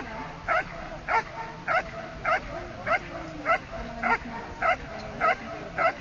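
A Belgian Malinois barking over and over in a steady, even rhythm of just under two barks a second.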